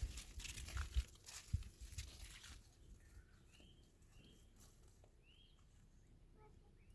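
Knocks and rustling over the first two and a half seconds, then faint bird chirps: short rising notes repeated a few times.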